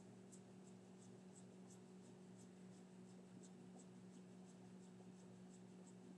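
Near silence: a steady low electrical hum with faint, evenly spaced high ticks, about three a second.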